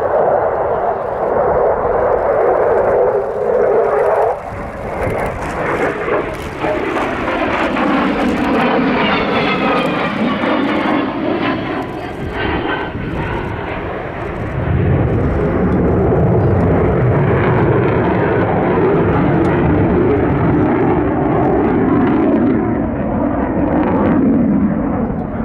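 F-16 Fighting Falcon's single jet engine running loudly through a flying display, with sweeping falling tones in the middle as the jet passes and a deeper, louder rumble from about halfway on.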